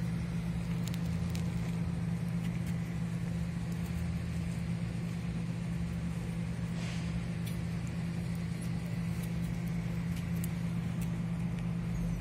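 A steady low engine drone running throughout, with faint scattered clicks and rustles.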